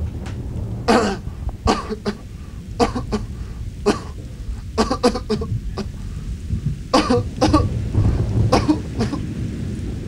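A man coughing again and again in short, irregular fits, as someone sick with flu, over a steady low rumble.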